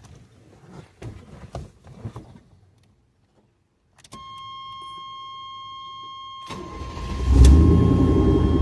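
Chevrolet square-body pickup being started: a few knocks and clicks, then a steady warning buzz. About six and a half seconds in the engine cranks and catches, rising sharply in level, and settles into a steady run.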